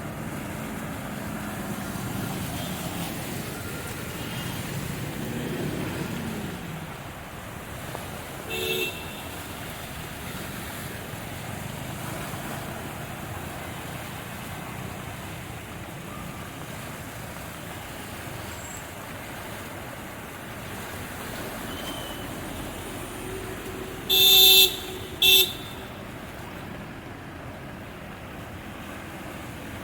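Steady road traffic noise of engines and tyres on a waterlogged street. There is a short horn toot about nine seconds in, and two loud car horn honks near the end, the first about a second long and the second shorter.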